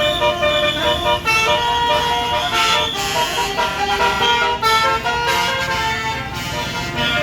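Tour bus's basuri telolet horn, a multi-trumpet melody horn, playing a tune of quickly changing notes.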